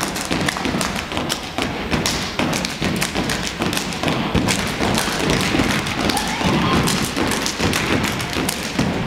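A dance group stomping and clapping on a stage: a dense run of thuds and sharp claps.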